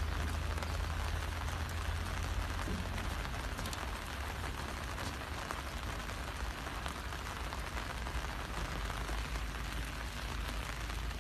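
Steady rain pattering on umbrellas, an even hiss with a steady low rumble underneath.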